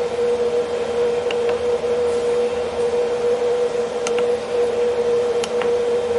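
Steady machine hum with a constant tone, and a few soft clicks in pairs as the buttons on a Huanyang VFD's keypad are pressed.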